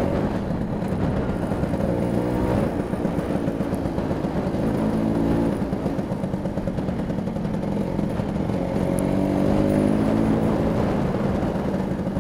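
Vespa P200E 200cc two-stroke single-cylinder engine running under way, its note rising in pitch twice as the scooter accelerates.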